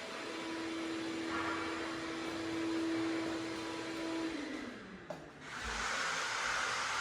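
Electric motor running with a steady whine, then spinning down about four seconds in. After a brief dip, a louder steady rushing noise starts up.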